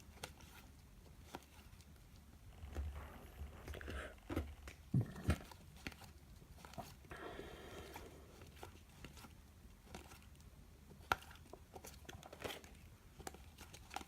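Trading cards being handled and flipped through by hand: faint sliding and rustling with scattered light clicks and a few sharper taps as cards are set down.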